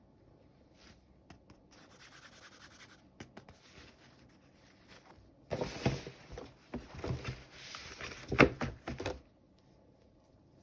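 Hands handling toy packaging: soft rustling and scraping, louder for a few seconds past the middle, with small clicks and one sharper knock near the end.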